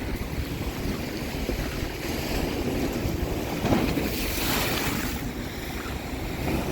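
Strong storm wind buffeting a phone's microphone over the steady wash of rough, storm-driven waves, swelling louder about four seconds in.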